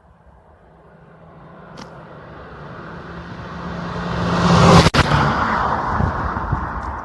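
Ford Fiesta driving through a deep river crossing: a steady engine hum under a rush of splashing water that builds, is loudest about five seconds in, then eases off.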